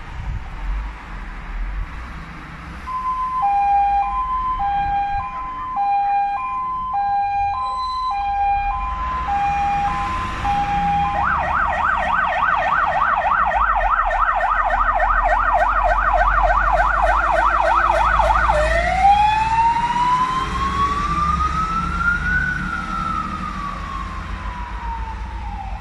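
Fire engine's electronic siren cycling through its patterns: an alternating two-tone hi-lo, then a fast yelp of about four sweeps a second, then a slow wail that rises and falls. The truck's engine rumbles low underneath.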